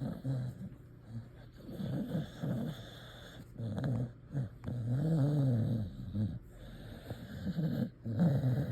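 A sleeping dog dreaming, making low muffled growls and snores in several short bouts; the longest bout, about five seconds in, rises and falls in pitch.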